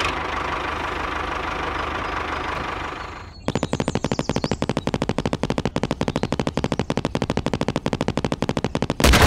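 A jackhammer-style rock drill hammering in a fast, even run of about a dozen blows a second, starting about three seconds in after a stretch of steady engine-like noise. A sudden loud burst cuts in near the end.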